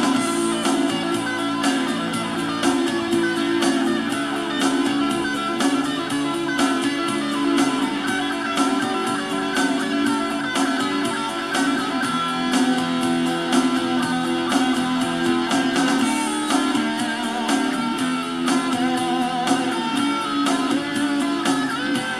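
A song's instrumental guitar passage with a steady beat, played through the speakers of an Aiwa CDS-A190 portable CD/radio/cassette stereo.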